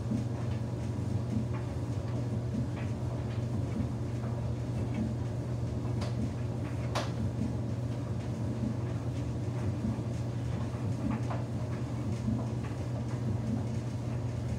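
Samsung front-loading washing machine running a wash with a single towel: a steady motor hum as the drum turns, with light irregular knocks and sloshing, and two sharper clicks about six and seven seconds in.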